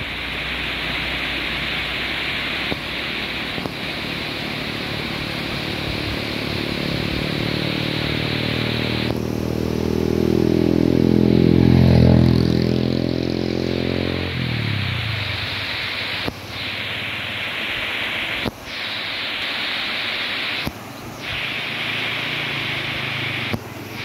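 Steady rush of a shallow river running over rocks and small rapids. In the middle a motor vehicle passes close by: its engine note grows louder, peaks, then drops in pitch and fades. The sound cuts out briefly a few times near the end.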